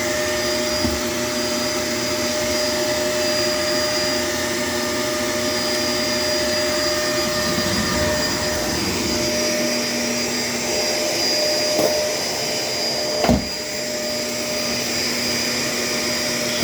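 Shark LA702 vacuum cleaner running steadily with a constant whine, with one short knock about thirteen seconds in.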